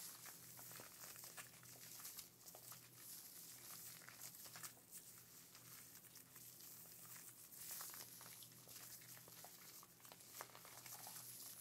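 Hands working foamy hair mousse right up against the microphone: a soft, close crackling and rustling made of many small clicks.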